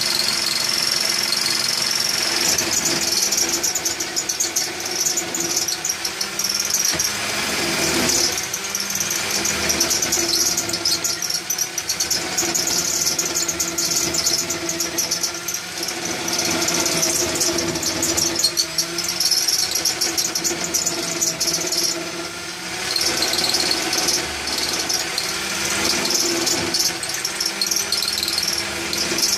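Electric drill driving a homemade wood lathe, its motor running steadily while a hand-held turning tool scrapes and cuts the spinning wood in repeated passes. The motor's hum dips slightly in pitch now and then, and the cutting noise comes and goes with short pauses.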